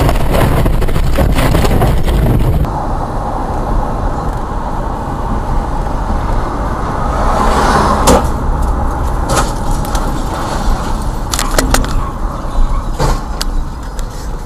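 Car interior road and engine noise picked up by a dashcam while driving on a multi-lane road, with a series of sharp knocks and bangs in the second half as a car ahead crashes and rolls over. A louder, rougher stretch of noise from the previous clip cuts off about two and a half seconds in.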